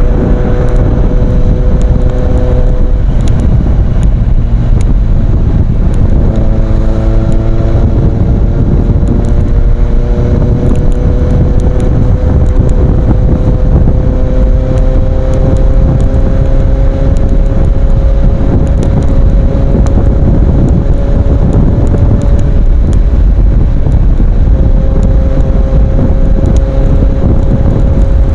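Kawasaki Z800's inline-four engine running through an aftermarket Ixil exhaust, with heavy wind rumble on the microphone. The engine note shifts twice in the first several seconds, slowly climbs, then drops back about three-quarters of the way through.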